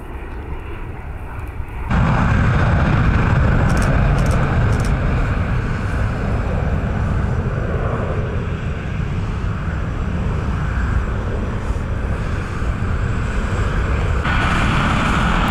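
Steady jet aircraft noise on an airport apron, a low, even roar that gets much louder about two seconds in and shifts again near the end.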